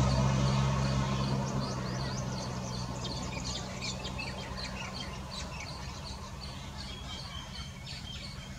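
Vehicle engine noise fading away after passing close by, leaving a steady low hum. Over it, small birds chirp in quick, high notes that come more often from about a second in.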